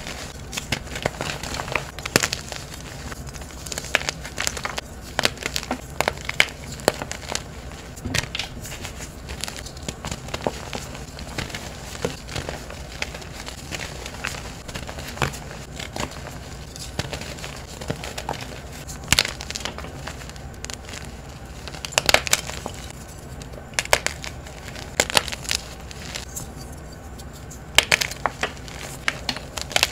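Hands crushing blocks of reformed gym chalk, which crunch and crumble into powder in a steady run of irregular crackles. Louder crunches come in clusters, several of them in the second half.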